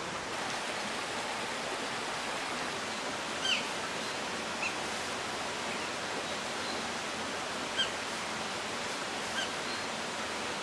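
Steady rush of water flowing through a shallow, stony stream. Four short, high chirps sound above it at irregular intervals, the loudest about a third of the way in.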